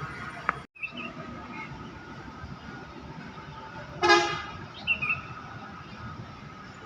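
A vehicle horn gives one short toot about four seconds in, over a steady hum of road traffic.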